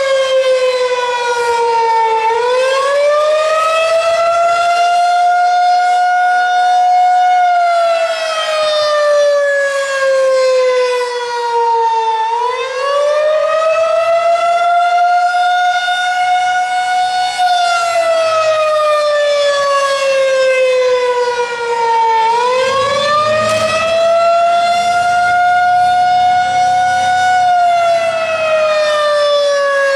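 Federal Signal 2001-SRNB outdoor warning siren sounding a test. Its single tone rises quickly in pitch, holds, then slowly falls, in a cycle that repeats about every ten seconds, three times over.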